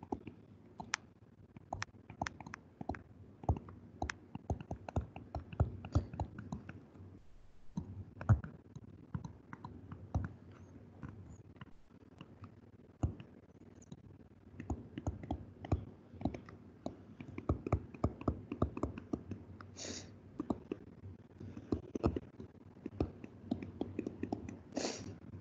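Stylus tapping and scratching on a tablet screen while handwriting, a dense, irregular run of small clicks. Two short hisses come in the later part.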